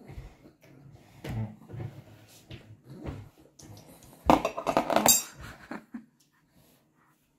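Metal fork scraping and clinking against a plate as food is moved about, with a louder burst of clattering about four seconds in.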